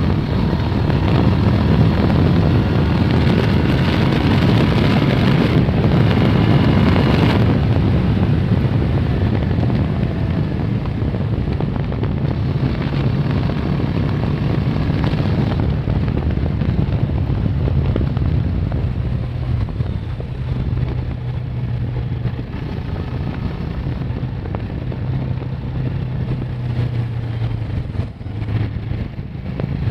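Kawasaki ER-6n's 649 cc parallel-twin engine running steadily under way at road speed, heard from on the moving bike. It is louder through the first half and eases off a little after about halfway.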